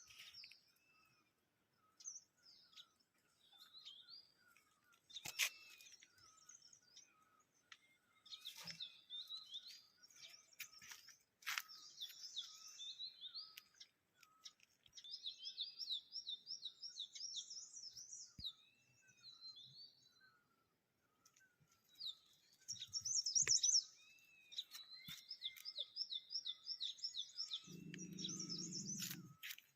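Several wild birds singing together in a morning chorus: rapid repeated trills, scattered chirps and a lower call repeated over and over. A few sharp clicks are heard, and a brief low hum comes in near the end.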